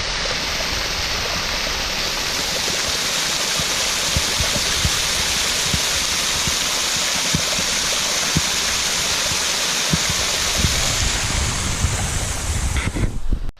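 Steady rush of a small spring-fed waterfall, water pouring and splashing without a break, with a few faint sharper splashes.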